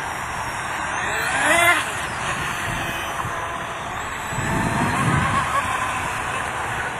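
Brushless outrunner electric motor of a small RC outrigger hydroplane running at speed, with the hiss of the hull and propeller skimming over the water. The motor's whine swells and shifts in pitch about a second and a half in.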